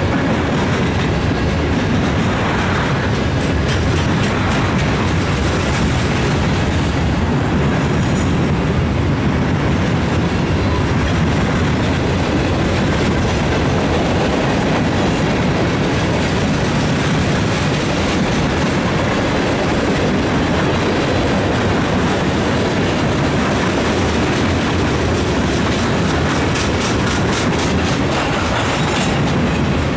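Freight cars of a mixed freight train (hoppers, tank cars, flatcars) rolling past at speed: a steady, loud rumble of steel wheels on the rails.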